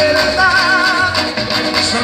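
Latin American carnival comparsa dance music with a steady percussion beat and bass, and a wavering held melody note in the middle.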